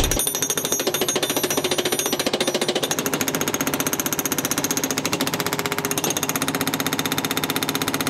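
Hydraulic breaker (Cat hammer) on a JCB compact track loader, pounding a concrete pad in a rapid, even hammering of about a dozen blows a second to break the concrete up. The loader's engine runs steadily underneath.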